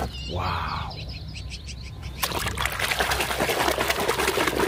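Water splashing and sloshing as a hand scrubs a mud-covered plastic toy tank in foamy water, starting about two seconds in. Birds chirp faintly before it.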